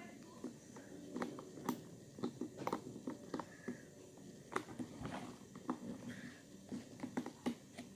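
Vaultz lock box's combination lock being handled while its code is reset: irregular small clicks and taps.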